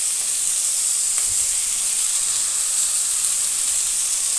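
Hot oil and spices sizzling in a kadhai as chopped fenugreek and dill leaves are tipped in: a steady high hiss.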